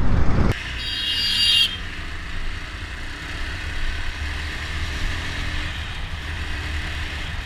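Motorcycle riding along a paved highway: a steady low engine and road rumble, with a short, high-pitched horn beep about a second in.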